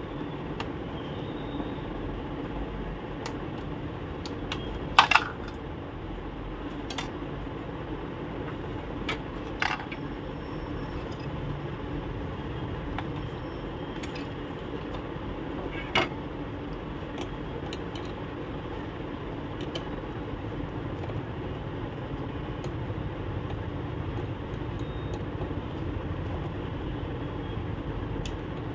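Scattered sharp clicks and clacks of hard plastic inkjet-printer parts being handled as the ink tubes are pulled free, the loudest a double click about five seconds in, over a steady background hum.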